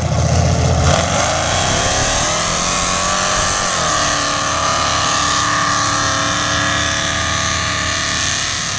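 Lifted 4x4 mud truck's engine at full throttle through a mud bog pit: the revs climb over the first few seconds, then hold high and steady.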